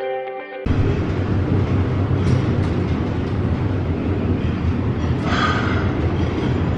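Brief background music, then from under a second in a loud, steady low rumble inside a lift car travelling in a deep underground station shaft, with a short higher-pitched noise about five seconds in.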